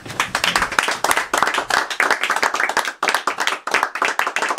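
A small audience clapping, starting suddenly and continuing as dense, uneven hand claps.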